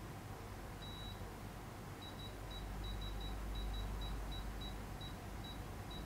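Gevi burr coffee grinder's touch control panel giving a short high beep with each tap of the Time button as the grind timer is stepped up one second per tap. One longer beep about a second in, then a quick string of short beeps, about three a second, from about two seconds in.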